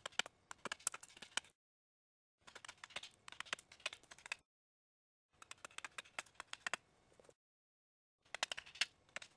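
Bushcraft knife blade cutting down the wood of a spoon blank braced on a chopping block: crisp clicking and crackling as wood fibres are shaved. It comes in four strokes or runs of about two seconds each, with about a second of silence between them.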